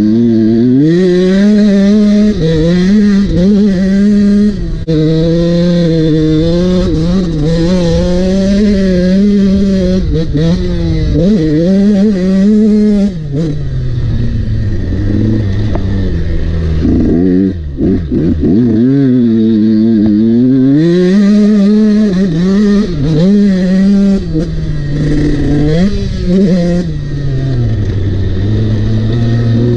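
Husqvarna motocross bike's engine revving under hard riding, its pitch rising and falling again and again as the throttle is opened and shut through the gears, dropping lower for a few seconds around the middle.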